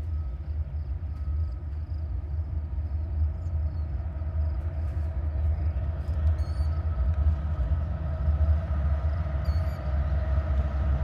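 Diesel-electric freight locomotives' engines rumbling deep and steady with a whine above, growing gradually louder as they approach.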